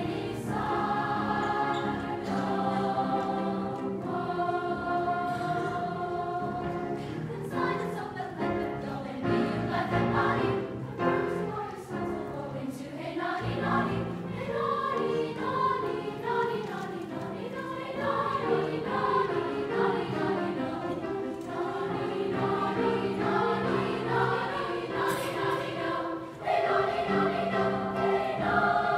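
A seventh-grade school chorus singing together, accompanied on grand piano.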